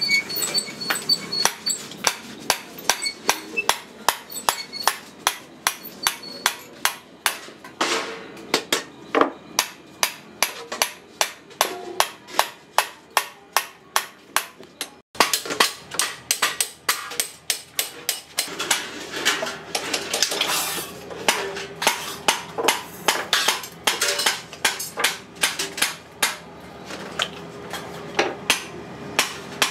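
Hammer blows on stainless steel sheet metal, struck in a steady run about two to three times a second, with a short break about halfway. In the second half the steel cylinder rings after the blows.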